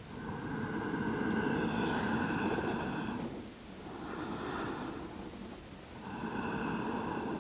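Slow, deep breaths held in the yoga pose, three long breaths in a row, each two to three seconds long, with short pauses between them.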